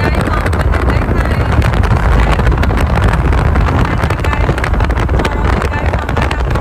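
Steady rumble of wind and road noise from a moving car, with wind buffeting the microphone.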